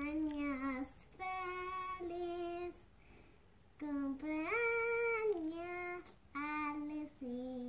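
A young girl singing slowly in long held notes, with a short pause about three seconds in and a higher note reached by a rising slide about halfway through.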